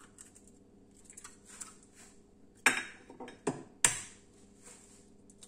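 Eggs being cracked into terracotta cazuelas: three sharp knocks, one about two and a half seconds in and two close together about a second later, with light clinks and rustles of handling between them.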